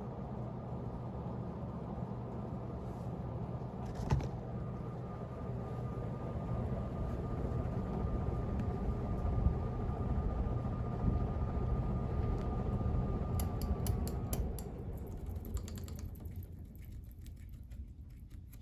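1962 Hunter R-52 ceiling fan motor running with a steady low hum and a faint high whine; about fourteen seconds in the whine drops slightly and stops and the hum fades away, with a sharp click about four seconds in and a run of clicks just before the fade.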